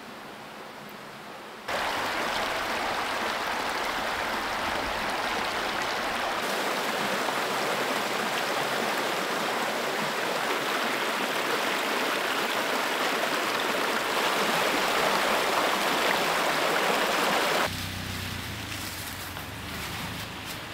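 Water rushing over a small rocky cascade in a creek: a steady, loud rush that starts suddenly about two seconds in and cuts off near the end. It gives way to the low rumble of a pickup truck's engine driving a dirt trail.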